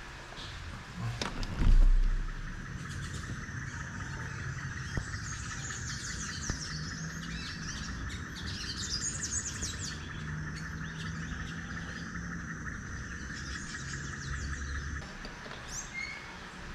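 Small birds chirping outdoors, many short quick calls over a steady hiss, with one loud thump near the start.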